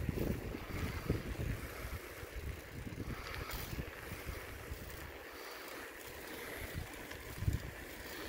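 Wind buffeting an outdoor microphone: an uneven, gusty low rumble with a light hiss above it, easing briefly a little past halfway and coming back.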